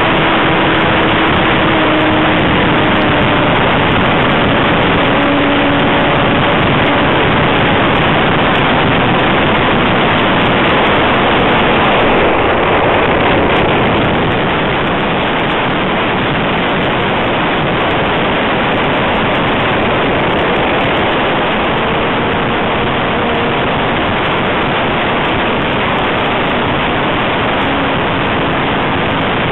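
Model Cub airplane in flight heard through its onboard camera's microphone: a steady, loud rush of propeller wash and wind, with faint brief tones of the motor beneath. The level eases slightly about halfway through, as the plane comes out of a steep dive toward the ground.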